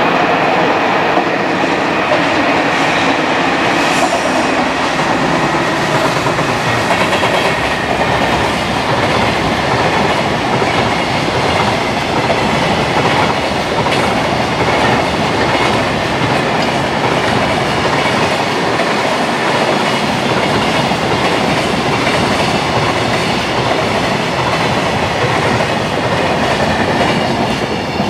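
A freight train hauled by an electric locomotive passes steadily, its wheels clattering over the rail joints in a continuous loud run.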